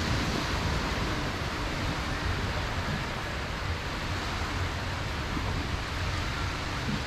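Steady wash of surf on the beach, with wind buffeting the microphone in a low, gusty rumble.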